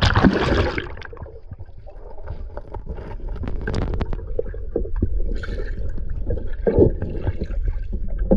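River water sloshing and splashing around a person wading and groping through the muddy bottom, with a big splash right at the start and scattered small knocks and scrapes after it.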